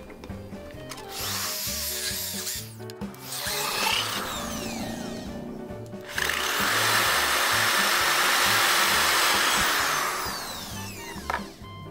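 Drill press cutting holes in a plate: a hole saw grinding through in short bursts, then a smaller cutter boring a second hole, the loudest and steadiest stretch from about six seconds in, dying away near the end. Background music plays underneath.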